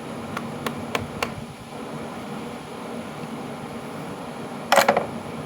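Steady hum of an electric fan, with four light metallic clicks in the first second or so and a louder short metal clatter near the end, from tools working on parts of a disassembled Delco starter.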